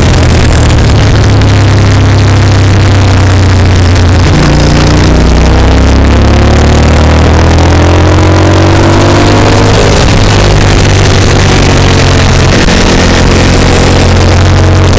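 Onboard sound of a motorcycle at speed on a racetrack: heavy wind rush on the microphone over the engine, whose note climbs and drops in pitch several times in the middle as the rider accelerates and shifts through the corners.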